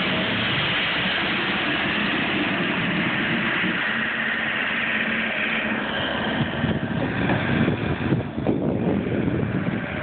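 Gehl two-speed skid-steer loader's engine running steadily close by. About two-thirds of the way through, as the loader pulls away, its sound is broken up by irregular gusts of wind buffeting the microphone.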